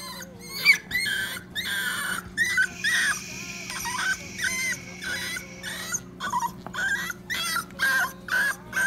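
Six-week-old puppy crying in a run of short, high yelps, about two a second, the loudest about a second in, as it is held down and given a vaccine shot under the skin.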